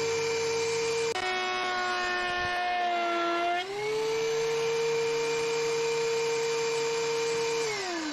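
DeWalt thickness planer running with a steady pitched motor whine. The pitch drops about a second in as a board is fed through the cutter head and loads it, comes back up after three and a half seconds as the board clears, then falls away smoothly near the end as the planer is switched off and coasts down. It is cutting on dull knives that are about to be flipped to a fresh edge.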